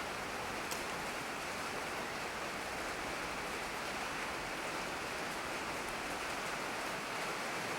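Steady background hiss with no clear source, with one faint click about a second in.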